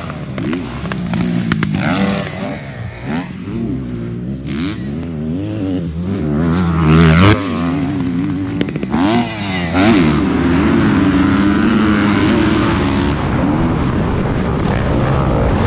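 Dirt bike engine revving, its pitch rising and falling again and again with throttle and gear changes. About ten seconds in it gives way to a steady, loud drone of several racing dirt bikes heard from on board one of them.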